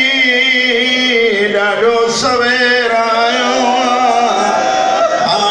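A man's voice chanting religious verse in a sung style, with long held notes whose pitch wavers and turns.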